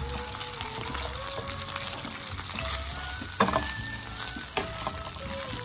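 Chicken wings sizzling as they fry in shallow oil in a nonstick pan while they are turned with tongs, with a sharp knock about three and a half seconds in and a lighter one a second later. Background music with a melody plays throughout.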